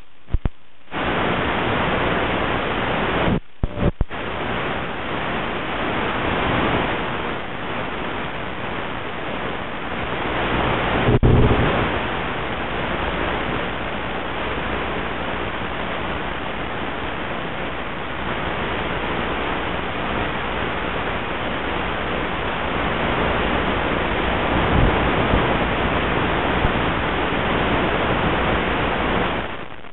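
Steady loud static hiss from an analog FPV video receiver's audio channel, with two short dropouts a few seconds in and a louder swell around the middle.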